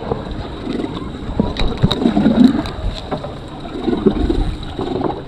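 Wind buffeting the microphone and water sloshing around a small boat, with scattered knocks and clicks as a large fish is lifted out on the line and handled over the stern.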